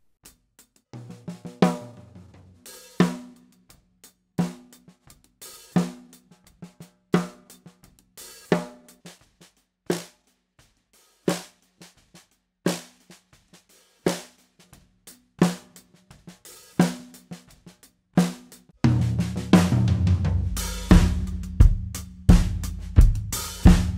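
Snare drum recorded through a pair of Samson C02 small-diaphragm condenser mics above and below the drum. Hard backbeat strikes come about every second and a half, with quieter ghost notes between, each hit ringing briefly. About 19 seconds in, the full drum kit mix joins, with kick drum and cymbals under the snare.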